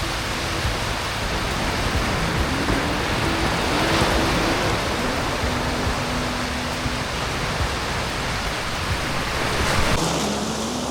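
Steady rushing noise that swells about four seconds in and again near the end, with soft background music notes beneath it.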